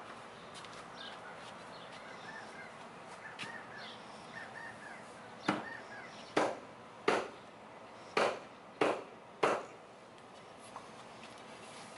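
Six sharp knocks, about one every three-quarters of a second, as the knob end of a wooden axe handle is struck down on a stone block to seat the axe head on the handle. Faint bird chirps come before the knocks.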